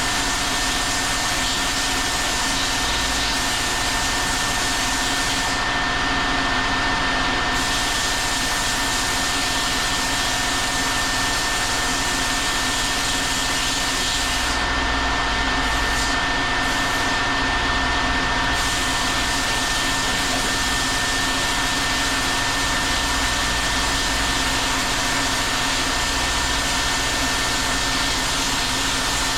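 A steady, loud whir of a motor-driven blower, with a constant high whine running through it. The hiss thins briefly twice.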